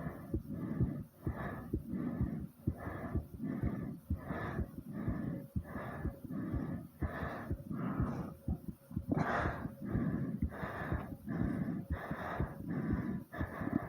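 A person panting hard from exertion after squats: quick, even, heavy breaths a little more than one a second, with one deeper breath about nine seconds in. Short low thumps run under the breathing, which the video puts down to a fast heartbeat.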